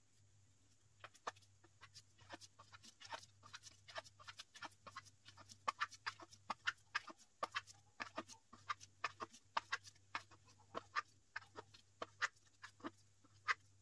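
Irregular sharp clicking and creaking, several clicks a second starting about a second in, as the hand-turned screw of a 3D-printed rear sight press is worked to push a handgun rear sight along its dovetail.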